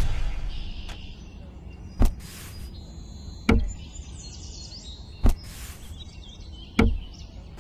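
A small engine cuts off at the very start, followed by four dull knocks about one and a half seconds apart, with faint chirps in the background.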